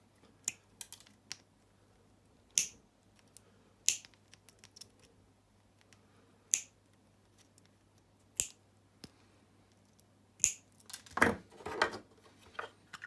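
Plastic cable-gland parts being cut with a hand cutting tool: single sharp snaps every couple of seconds, six or so in all, then a short burst of plastic clatter and handling near the end.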